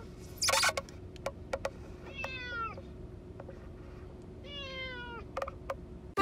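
Domestic cat meowing twice inside a plastic pet carrier, each meow long and sliding down in pitch. There is a short loud noisy scrape about half a second in and a few scattered light clicks.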